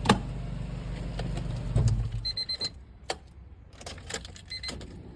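1998 Honda Civic engine idling, now that a faulty ECU ground wire has been fixed. It shuts off about two seconds in, followed by key clicks and two short pairs of high electronic beeps.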